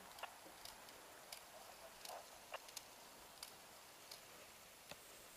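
Near silence with faint, scattered short clicks and ticks, about a dozen, one a little sharper near the end.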